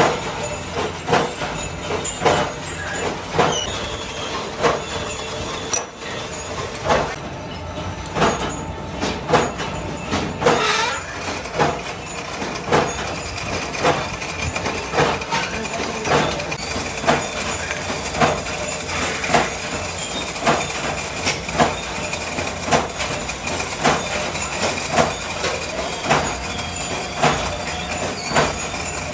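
Metal lathe running while it turns a steel rotor shaft, with steady machining noise and sharp metallic clacks about once a second. A faint steady whine joins about twelve seconds in.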